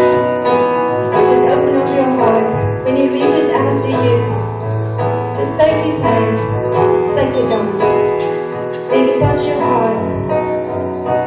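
Live worship band playing a slow passage: keyboard chords held under regular drum and cymbal strikes, with a wordless voice gliding over the top.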